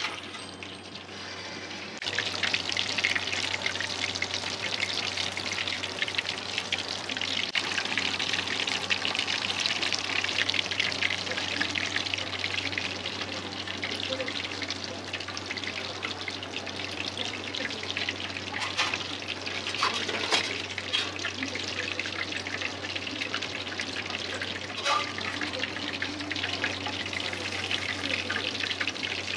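Breaded cutlet deep-frying in a pan of hot oil: a dense, steady sizzle full of fine crackles that grows louder about two seconds in. A low steady hum runs underneath, and a few brief knocks come near the end.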